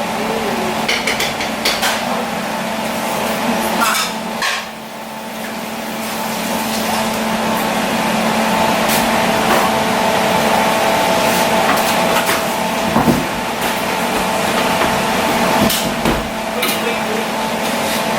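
Kitchen utensils clinking and knocking against dishes and pans in short irregular strikes, over a steady hum.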